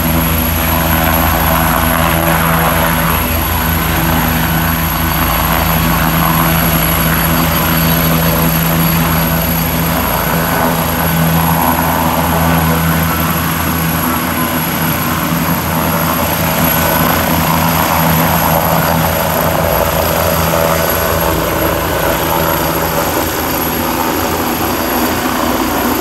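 Helicopter overhead, its rotor and engine making a loud, steady drone with deep steady tones; the deepest of them fade about halfway through.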